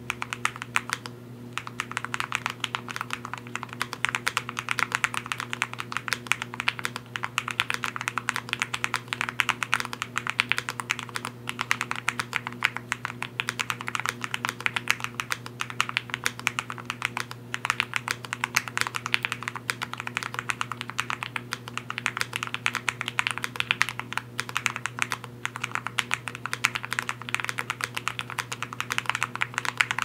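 Fast, continuous typing on an Iqunix Magi65 aluminium low-profile mechanical keyboard: a dense stream of key clicks with a few brief pauses.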